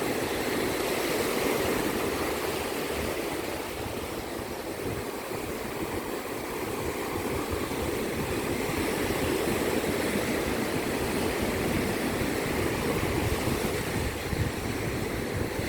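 Ocean surf washing on a beach: a steady rush of breaking waves that eases slightly a few seconds in and swells again.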